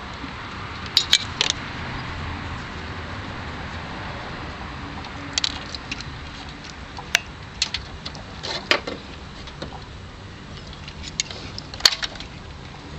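Steady background rumble with a scattering of sharp clicks and small rattles, about seven in all, the loudest near the end, from hands moving wiring and test gear under a car's hood.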